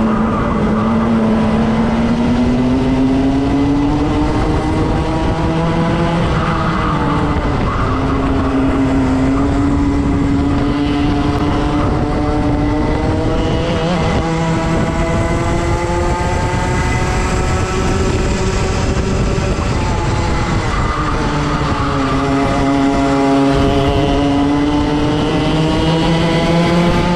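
Two-stroke racing kart engine at full race pace, its pitch climbing steadily down the straights and dropping sharply under braking into corners. The pitch drops near the start, about seven seconds in, and about twenty seconds in.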